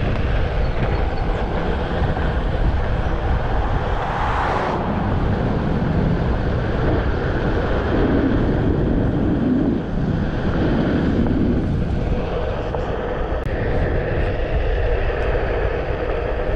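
Steady rush of wind on the microphone and tyre noise on asphalt from riding a Onewheel electric board at cruising speed.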